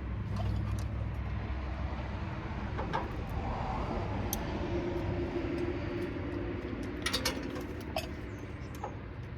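A steady low engine rumble with a held tone in the middle, and scattered sharp clicks and taps, the loudest cluster about seven seconds in.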